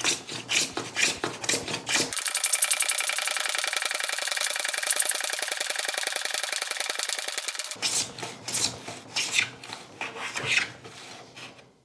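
Hand plane being pushed along a wooden workpiece's edge on a shooting board, trimming the part narrower: a string of rasping plane strokes. From about two seconds in to about eight seconds it becomes a steady, dense, buzzing rasp of very rapid strokes, then the separate strokes return.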